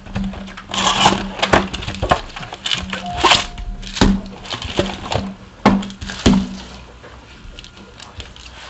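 Trading-card packaging being handled and torn open by hand: a string of sharp crackles, rips and knocks for about seven seconds, then quieter rustling. A steady low hum runs underneath.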